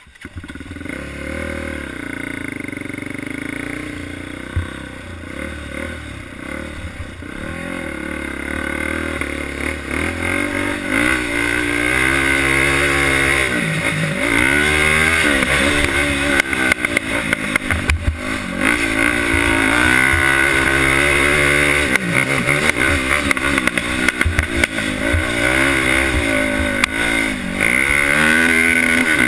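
A 2007 Polaris Outlaw 525 quad's single-cylinder four-stroke engine, heard on board, revving up and dropping off again and again as it is ridden round a motocross track. It is quieter for about the first ten seconds, then revs harder and louder, with repeated sharp falls in pitch as the throttle is shut off.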